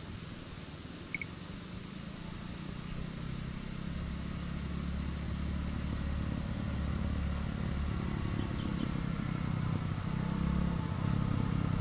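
Motor vehicle engine running on the road, growing steadily louder, with a short high chirp about a second in.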